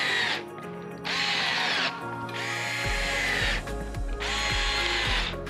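Cordless power driver running in short bursts, about four, each whining briefly and then winding down as it runs T15 screws home to fasten a front splitter. Background music plays underneath, and a steady bass beat comes in about three seconds in.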